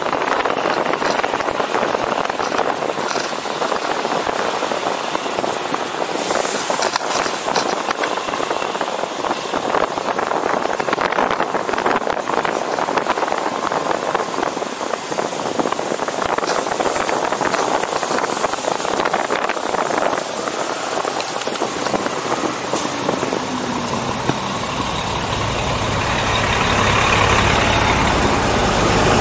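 Steady wind and road noise picked up while riding a bicycle through traffic. In the last few seconds a city bus's engine runs right alongside, a low rumble that grows louder.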